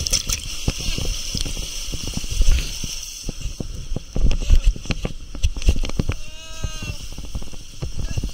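Rushing, splashing water on a plastic water slide as a rider slides down, with frequent thumps and knocks close to the camera. About six seconds in, a person gives a short, wavering cry.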